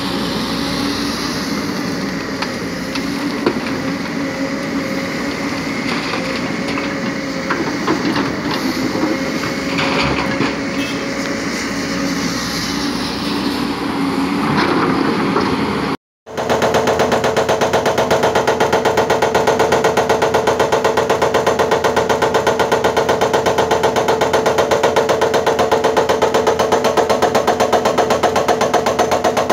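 JCB tracked excavator's diesel engine running steadily, with loose rocks clattering as the bucket works the stone. After a short break about 16 seconds in, a Hyundai excavator's hydraulic rock breaker hammers rock in a rapid, even rhythm, louder than the first part.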